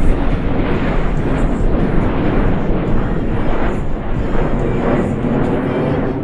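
Four F-16 Fighting Falcon jets flying in diamond formation, their engines a loud, steady rush that slowly fades.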